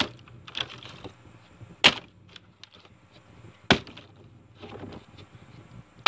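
Plastic water bottle flipped and landing on a hard surface: a sharp thud about every two seconds, with light knocks between.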